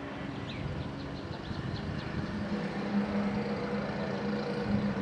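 A motor vehicle's engine running steadily, its hum strengthening about two seconds in. A few short bird chirps come in the first two seconds.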